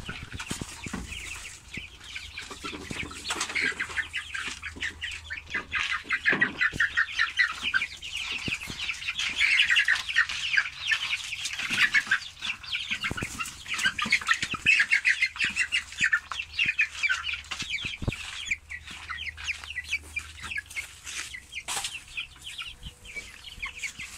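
Young chickens squawking and clucking in alarm with wings flapping as they are grabbed by hand in a coop. The calls come thick and fast, busiest in the middle.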